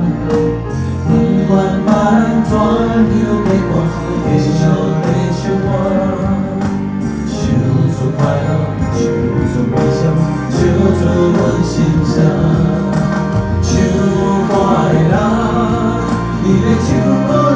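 Street performers' live music: a singer over instrumental accompaniment with a steady bass line.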